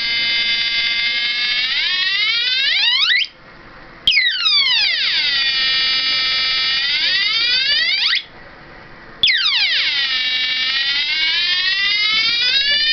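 Homemade twin-NE555 sound-imitator circuit sounding through a small loudspeaker: a buzzy electronic tone that starts with a click, slides down in pitch, holds, then slides up and cuts off. This repeats about every five seconds with a second-long gap, as the slow first timer modulates the second.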